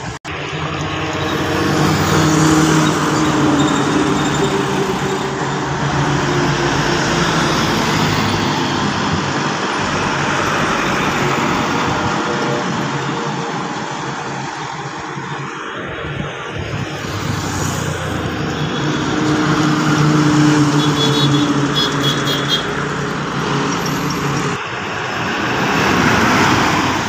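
Road traffic passing close by: trucks, a bus and a motorized three-wheeler, their engines swelling and fading as each goes by. A truck passes right by near the end.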